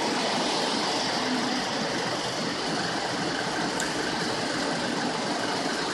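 Steady city street traffic noise: a continuous wash of passing vehicles and engines.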